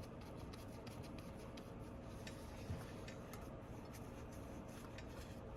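Faint scattered clicks and light rubbing from small hand tools and fingers working on a phone, with one soft low knock about halfway through, over a faint steady hum.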